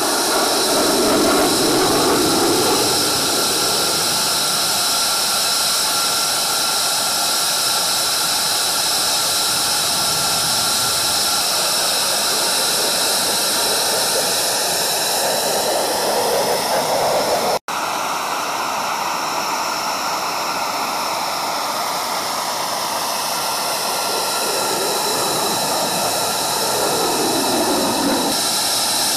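An F-22 Raptor's twin Pratt & Whitney F119 afterburning turbofans, loud and steady as the jet flies past, with a high whine over the jet noise. The whine sweeps down in pitch in the last third as the jet passes, and the sound breaks off for an instant about two-thirds through.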